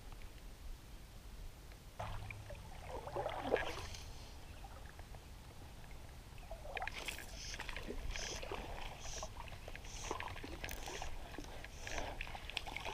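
Faint water sloshing and rustling as a fly line is cast and stripped over a small stream. Through the second half, a short high note repeats about once a second.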